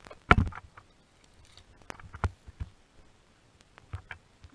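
Knocks and rustling right at a body-worn camera as the player moves over dry leaf litter, with one heavy thump about a third of a second in and a few sharper clicks later.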